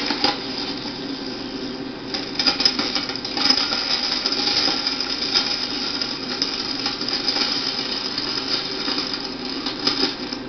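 Soundtrack of an electrostatic vortex experiment video playing through computer speakers: a steady crackling hiss full of rapid, irregular clicks over a faint hum.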